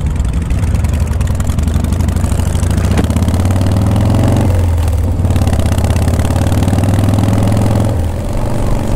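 Vintage Harley-Davidson V-twin engine accelerating under way. The revs climb, drop at a gear change about four and a half seconds in, climb again and ease off near the end, with wind noise over the microphone.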